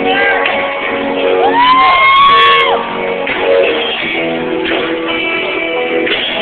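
Live rock band playing with guitars, recorded on a cell phone close to the stage, so the sound is cut off above the mid-highs. About a second and a half in, a voice rises into a long held shout over the band for about a second.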